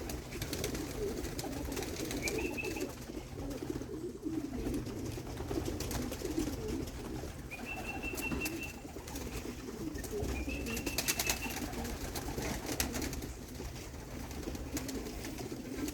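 Racing pigeons cooing in the loft, a continuous low burbling. Three short high-pitched tones and a few sharp clicks come through it.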